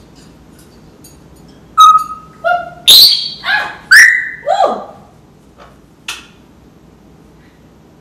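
African grey parrot making a quick run of whistles and calls about two seconds in: a short steady whistle, a sharp harsh note, then several falling whistles, the last sliding down low.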